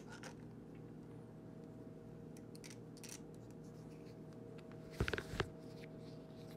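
Faint clicks and light metal-and-plastic rattles from a dropper seat post remote lever and a small Allen-key tool being handled as the lever's hinged clamp is fitted and bolted onto the handlebar, with a short cluster of sharper clicks about five seconds in. A steady low room hum sits underneath.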